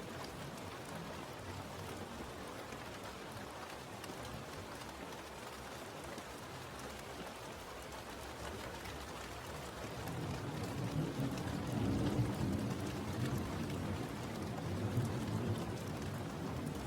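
Steady rain falling, an even hiss of drops on a surface. About ten seconds in, a low rumble rises under it and swells twice before easing.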